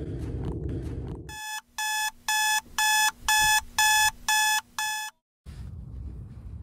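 Electronic wake-up alarm beeping: eight short high beeps, about two a second, that stop abruptly.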